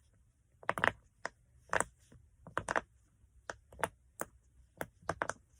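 Silicone pop-it fidget toy, its bubbles pressed in one by one on the good side. The result is an irregular run of short, sharp pops, about three a second, some coming in quick pairs.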